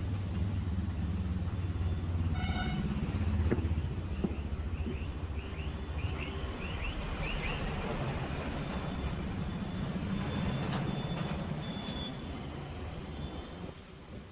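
Road traffic running steadily, with a short vehicle horn toot about two seconds in. A run of quick high chirps follows a few seconds later.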